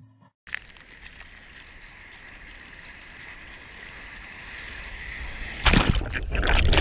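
Sea surf hissing around a water-level action camera, growing steadily louder; about six seconds in, loud, rough splashing as a breaking wave's whitewater washes over the camera.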